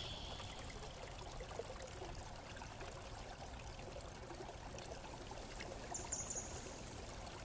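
Faint steady hiss of background noise, with light handling noise about six seconds in as the small DC motor is picked up and moved.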